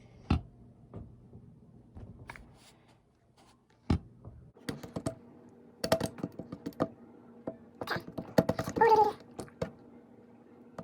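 Toy slime being squeezed and worked by hand, giving a run of small wet clicks and pops that come thicker in the second half, with a brief pitched squeak about nine seconds in.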